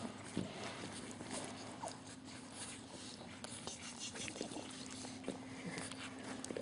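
French Bulldog puppies about two and a half weeks old snuffling and suckling at their mother, with many small scattered clicks and soft noises, over a faint steady hum.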